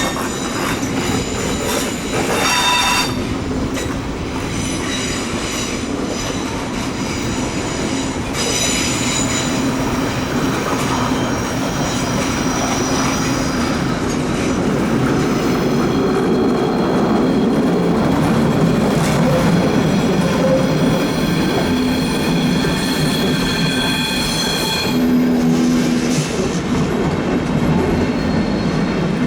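A train running slowly through a tight curve, its wheel flanges squealing against the rails over a steady rumble. The squeal comes in high, steady tones that die away and return several times: short at the start, again after about eight seconds, and held longer through the second half.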